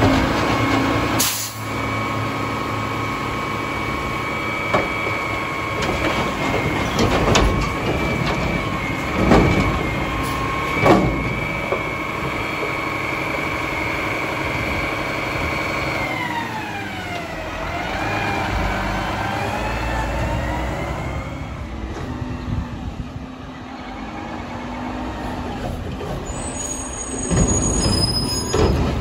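Mack LEU front-loader garbage truck with a McNeilus Contender body running hard with a steady high whine, broken by a few short bangs and hisses. About sixteen seconds in the whine drops in pitch, then rises and falls a few times as the engine speed changes.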